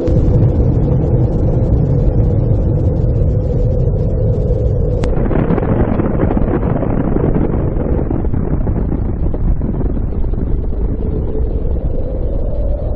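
Loud, steady low rumbling noise that starts abruptly and turns brighter after a sudden change about five seconds in.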